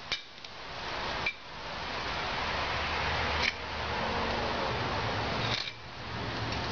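A small metal tool scraping the loose, partly set mortar off the edges of freshly struck grapevine joints on a stone wall, in about three long strokes.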